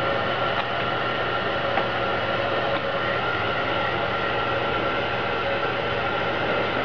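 Handheld electric heat gun running steadily: a constant blowing hiss with a low hum and a faint steady whine, heating tint film on a taillight so the wrinkles can be stretched out.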